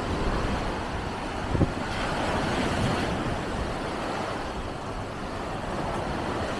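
Surf breaking and washing through the shallows, with wind rumbling on the microphone and a short thump about a second and a half in.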